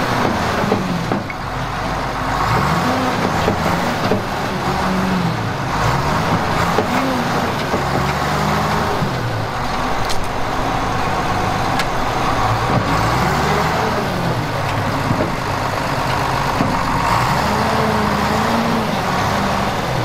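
John Deere cable skidder's diesel engine working hard, its revs rising and falling again and again as the front blade pushes dirt and stumps.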